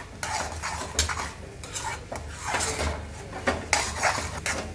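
Spatula stirring a thick chana dal filling in a metal pan, with repeated scrapes and knocks against the pan's sides and bottom as the mixture is turned over.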